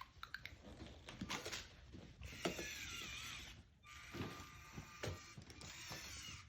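Faint clicks and light knocks from a small toy robot's motor-driven hammer mechanism at work.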